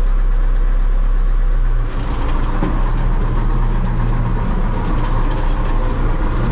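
DT-75 crawler tractor's diesel engine running, heard from inside the cab. About two seconds in the sound turns rougher and brighter, with more high end.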